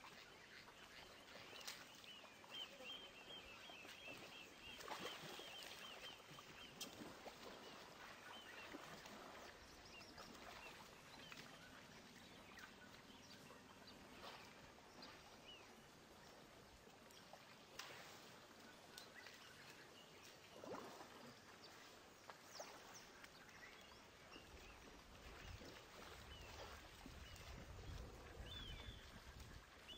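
Faint outdoor ambience at a muddy elephant waterhole. Short high chirps repeat for a few seconds near the start, soft splashes and clicks are scattered throughout, and a low rumbling sound comes in near the end.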